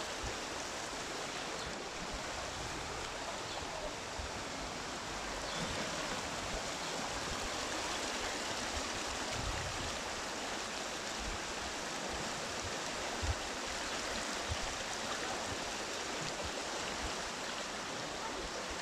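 Flash floodwater rushing fast down a narrow stream channel: a steady, unbroken rush of churning water.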